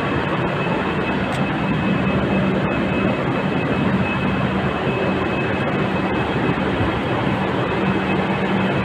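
Steady, loud roar of trains standing at a covered station platform, with a constant high whine and a low hum running through it.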